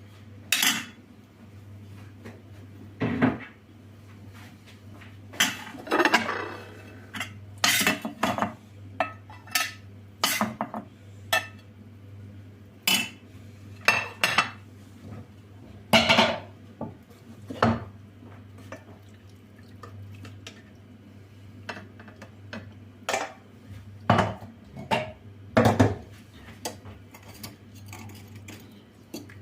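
Dishes, pots and cutlery clinking and knocking as they are handled: irregular sharp clinks every second or so, over a steady low hum.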